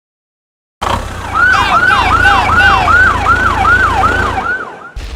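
Emergency-vehicle siren yelping in quick repeated falling sweeps, about two and a half a second, over a low engine rumble. It starts about a second in and stops just before the end.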